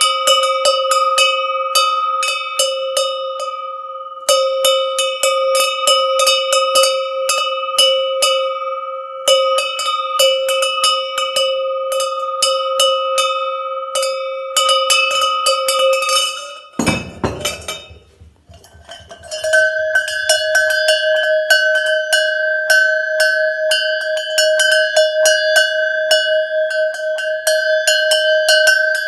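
Metal livestock bell clanking with rapid, irregular clapper strokes and a couple of short pauses. About two-thirds of the way through it stops with a dull handling knock, and a second, slightly higher-pitched animal bell starts clanking the same way.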